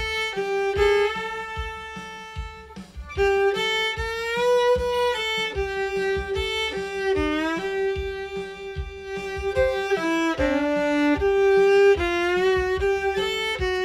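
Solo fiddle bowing a simple bluegrass melody, sliding up into the note at each chord change.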